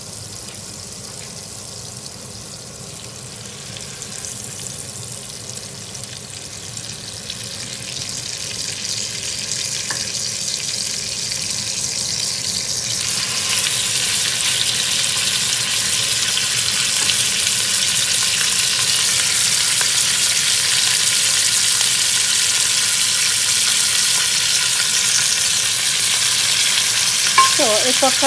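Hot fat sizzling in a pot. About halfway through, beef rouladen are laid into it, and the sizzling grows much louder and holds steady as the meat browns.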